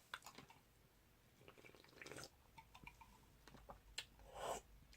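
Faint wet eating sounds of spicy instant noodles: soft mouth and slurping noises with scattered small clicks, the loudest wet smear near the end.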